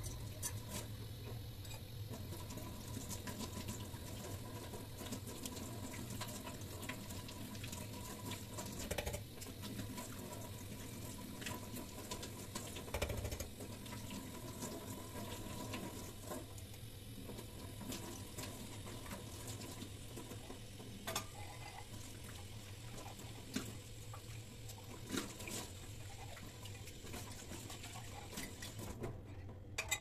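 Kitchen tap running into a stainless steel sink, water splashing as a small steel pot is rinsed under it, with scattered light clinks. The water is shut off right at the end.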